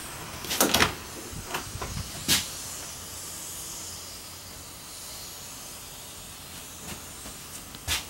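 An interior door in a travel trailer being handled: a quick cluster of knocks and clicks in the first couple of seconds, the loudest just under a second in, and one more near the end, over a steady hiss.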